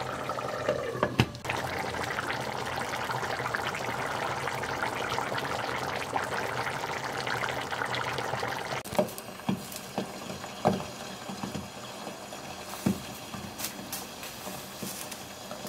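Pot of spinach and beef-tripe stew simmering on the hob with a steady bubbling hiss, and a single knock about a second in as the glass lid is lifted off. From about nine seconds in the bubbling is quieter, broken by scattered separate pops as the thickened stew bubbles.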